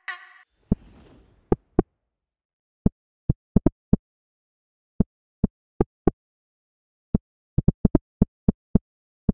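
FL Studio's DX10 FM synth on its 'meditated clunk' preset, playing an uneven, syncopated amapiano pattern of about twenty short, sharp clunk hits with silent gaps between them. It opens with the end of a held synth tone and a brief whoosh.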